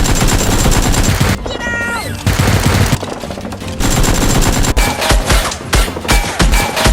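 Rapid automatic gunfire sound effects in sustained bursts, breaking into separate single shots for the last two seconds, over background music.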